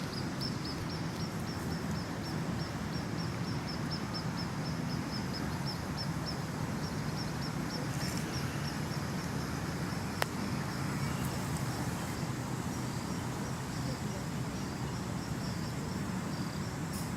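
Insect chirping in a steady run of short, high, evenly spaced chirps, several a second, over a steady low outdoor background noise; a single sharp click about ten seconds in.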